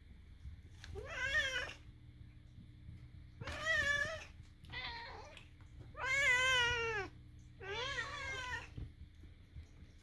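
A domestic cat giving five drawn-out, wavering meows one to two seconds apart. The fourth is the longest and loudest, and it drops in pitch at the end.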